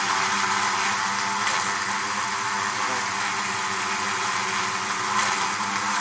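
Bees buzzing in a steady, unbroken drone, a low hum with a hiss over it.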